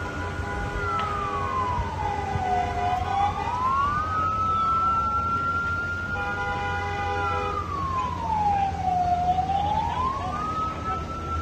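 Emergency vehicle siren in a slow wail: its pitch falls and rises again twice, about every six seconds. Under it runs a steady low rumble of road traffic, and a brief steady tone sounds twice.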